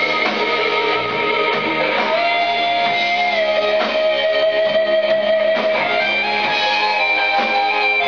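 Electric guitar playing an improvised lead solo live over a rock band's backing, with long held notes that step and slide between pitches.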